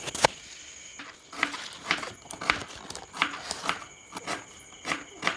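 Kitchen knife slicing onions on a cutting board: a series of sharp taps, about two a second, as the blade strikes the board.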